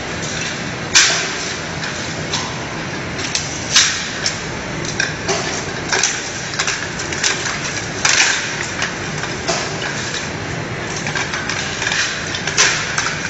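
Production-line machinery noise: a steady mechanical hiss with irregular sharp clicks and clatters, the loudest about a second in and near the end.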